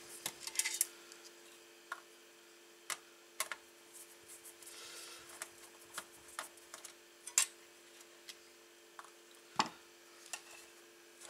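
Scattered light clicks and taps of a desktop PC power supply's sheet-metal case, wiring and circuit board being handled as the board is pulled free, with a louder knock near the end. A faint steady hum runs underneath.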